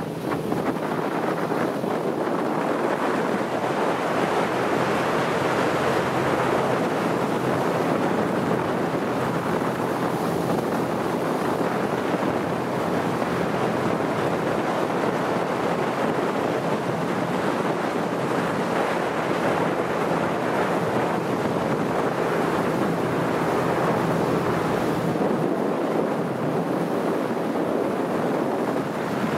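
Steady rush of water and wind buffeting the microphone aboard a moving chase boat, with a low engine hum underneath.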